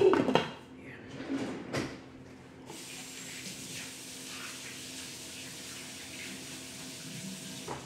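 A pot lid is set down on a large cooking pot with a clatter that rings briefly, and there is a second, lighter knock a moment later. Then a tap runs steadily for about five seconds and stops near the end.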